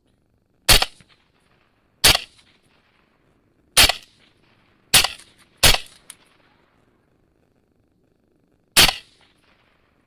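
Six rifle shots, each a sharp crack with a short fading tail, unevenly spaced: two come close together about halfway through and the last near the end.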